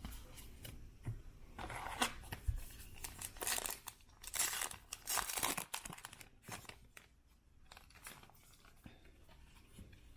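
A trading-card pack's foil wrapper being torn open and crinkled, in irregular bursts, with the cards rustling as they are handled.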